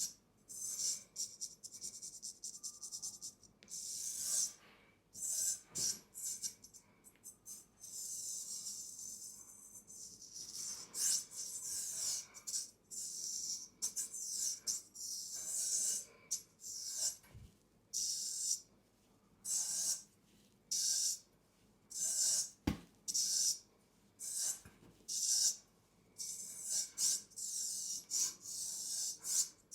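Straight razor scraping over skin in short, quick strokes: a crisp, high-pitched rasp repeated irregularly about once or twice a second, with brief pauses, and one soft knock about two-thirds of the way through.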